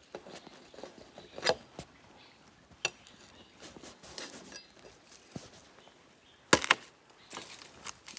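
Dry wood snapping and crackling over light rustling, with a few sharp cracks; the loudest is a double crack about six and a half seconds in.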